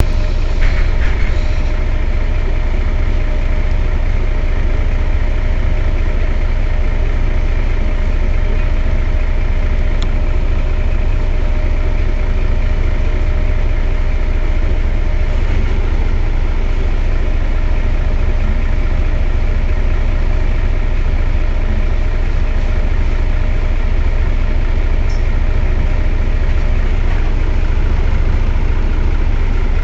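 Mercedes-Benz O 405 N low-floor city bus engine idling steadily, with a deep, even rumble.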